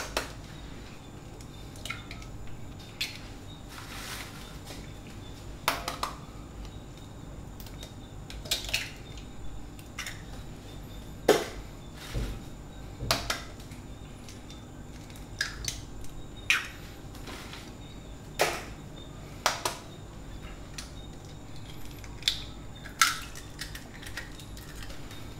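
Chicken eggs being cracked into a bowl one after another: a series of sharp taps and shell cracks, spaced a second or two apart.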